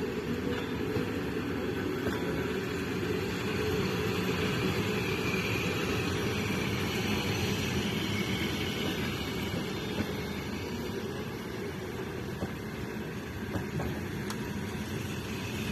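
Passenger train carriages rolling slowly past, a steady low rumble with a few faint knocks in the second half.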